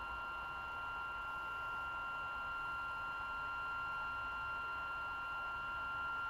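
Stepper motors of a delta 3D printer whining steadily as the carriages drive the print head slowly upward. The whine is a held chord of several pure tones that stays level throughout.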